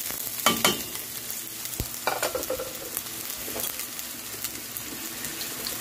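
Chopped garlic and red onion sizzling in hot oil in a stainless steel pan, freshly added for sautéing. A few sharp clicks stand out over the steady sizzle, the clearest about half a second and two seconds in.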